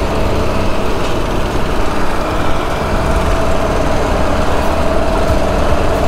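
A heavy engine running steadily: a loud, even low rumble with a steady tone above it.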